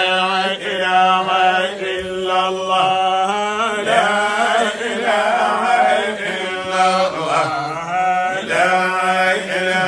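Melodic Islamic devotional chanting (dhikr), a voice drawing out long wavering notes over a steady low held tone.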